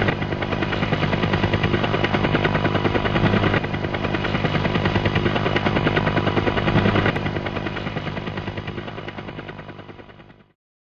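A rapid, steady mechanical clatter over a low hum, fading out over the last few seconds until it stops.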